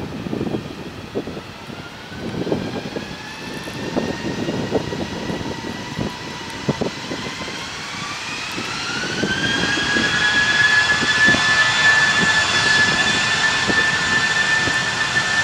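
Airbus A320-family jet airliner's turbofan engines spooling up for takeoff: a whine that rises slowly, climbs steeply about eight seconds in, then holds steady as the engines get louder at takeoff thrust. Wind gusts buffet the microphone throughout.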